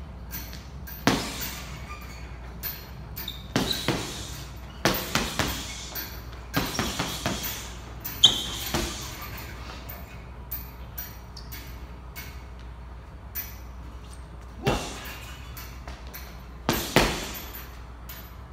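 Irregular knocks and clinks, a few with a brief high ring, over a steady low hum.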